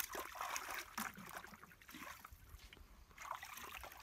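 Bare feet wading through shallow muddy water in a waterlogged tractor rut, sloshing with irregular small splashes.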